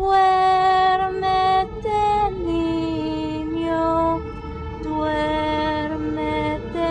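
Background music: a slow melody of long, held notes stepping from pitch to pitch, like a lullaby.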